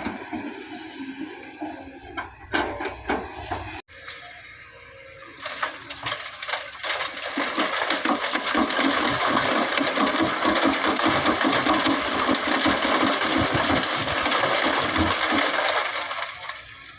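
A diesel engine running with a few knocks. After a short break comes a long, steady rush of sand and stones pouring from an excavator bucket into a steel dump-truck bed, full of rattling grit, with the engine running underneath.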